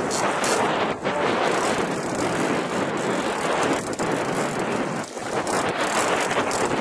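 Wind rushing over the microphone on an open boat on choppy water, a steady loud noise with a few short dips.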